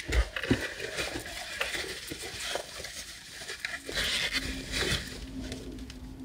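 Rustling and small knocks of a hand rummaging in a fabric bag and pulling out a paperback book. A low steady hum comes in about four seconds in.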